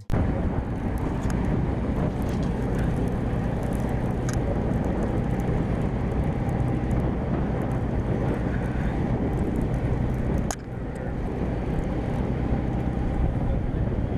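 A boat's engine running steadily while under way, with a brief drop in level about ten and a half seconds in.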